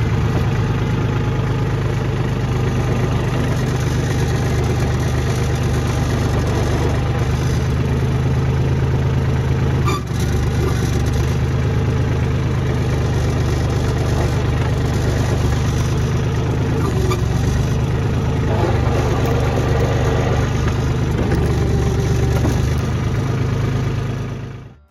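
Jinma tractor's diesel engine running steadily, with a brief dip about ten seconds in.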